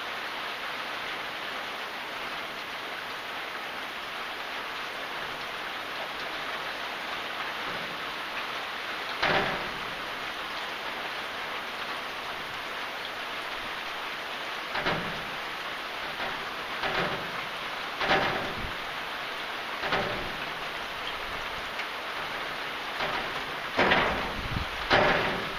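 Steady rain falling, an even hiss, with a short louder splash standing out every few seconds, more often in the second half.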